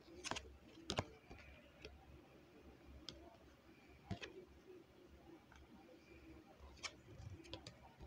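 Tarot cards being handled and stood on a small wooden easel: a scattering of faint, sharp clicks and taps, the loudest about a second in and a quick run of three or four near the end.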